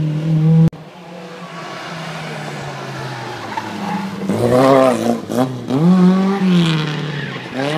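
Classic Mini rally car's four-cylinder engine approaching and passing through a tight corner, revving up and down several times as the driver works the throttle, with a short tyre squeal near the end. A different engine note cuts off abruptly under a second in.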